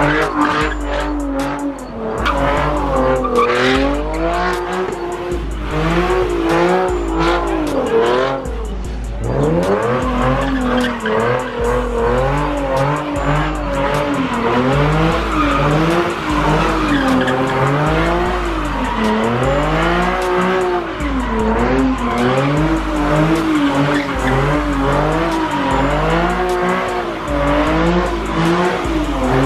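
Car doing donuts: the engine revs up and down over and over while the tyres squeal and skid on the pavement. A steady thumping bass beat runs underneath.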